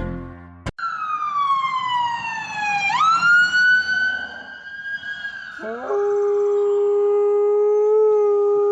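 A siren wailing: a pitched tone slides down, jumps back up about three seconds in and sags slowly. A dog then howls along in one long, steady note from about six seconds in, which stops abruptly near the end.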